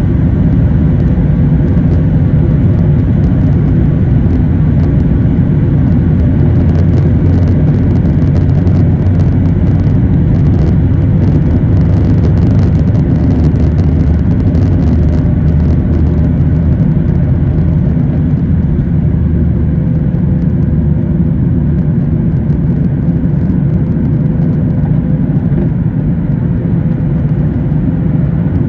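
Cabin noise of a Boeing 737 MAX 8 on its takeoff run, heard over the wing: its CFM LEAP-1B engines at takeoff thrust give a loud, steady low rumble with a faint steady tone, and the wheels rattle on the runway. The rattling stops about halfway through as the aircraft lifts off, leaving the steady rumble of the climb.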